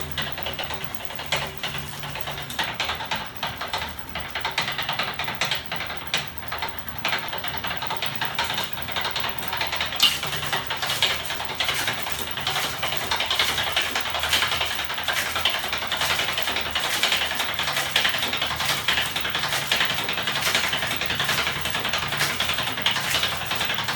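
Homemade aluminium-frame magnet motor machine running on its small electric motors, its spinning assembly rattling and clattering with rapid ticks. The clatter grows louder and brighter about ten seconds in as the machine speeds up.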